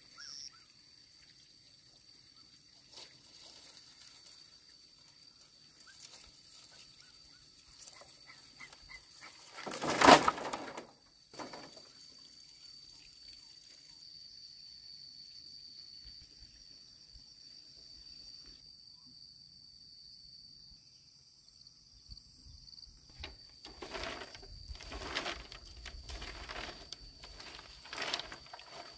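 Bamboo poles and split bamboo slats knocking and clattering as they are handled. There is one loud clatter about a third of the way in, then a run of hollow wooden knocks near the end as the slats are gathered up. A faint, steady high tone runs underneath.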